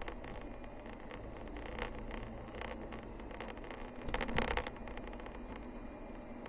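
A car driving along a narrow forest road: steady engine and tyre noise with scattered small clicks and rattles, and a louder cluster of knocks about four seconds in.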